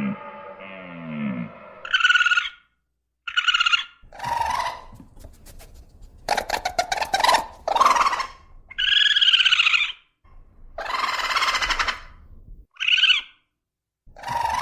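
A low, gliding whale moan fading out in the first second and a half, then a string of short, loud animal calls, one every second or two, one of them a rapid stuttering run.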